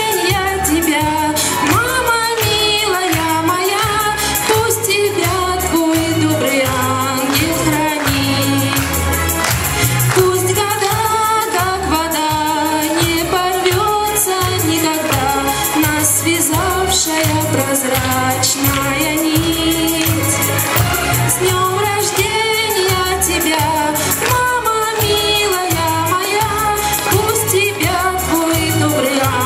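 A woman singing a song into a microphone over a recorded backing track with a steady beat, amplified through a hall PA.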